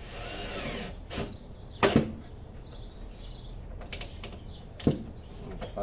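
Small cordless screwdriver running for just under a second, its whine rising and falling as it drives a screw into the spoiler on the car's rear hatch, followed by a few sharp clicks and knocks, the loudest about two seconds in.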